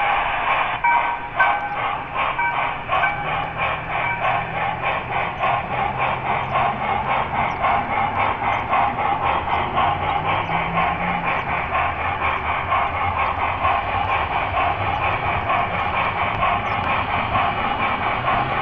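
Model train with an ES44AC diesel locomotive and grain hoppers rolling along the track, heard from a small camera riding on the train: a steady rolling rush with rapid, regular clicks of wheels over rail joints and a low hum underneath.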